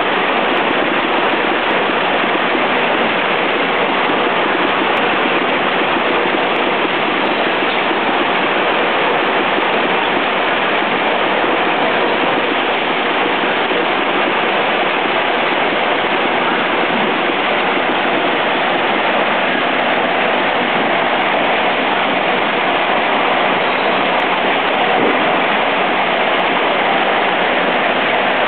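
Eight-head automatic capping machine and its cap feeder running, applying flip-top caps to chewing gum packs: a steady, dense noise with no clear rhythm.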